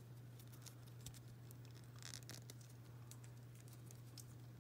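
Faint scattered clicks and a brief soft rustle of a small plastic doll and its outfit being handled and pressed together, over a steady low hum.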